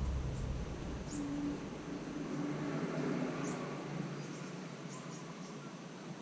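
Outdoor ambience: short high chirps repeating every second or so, over a low rumble that fades away in the first second or two. No airgun shot is heard.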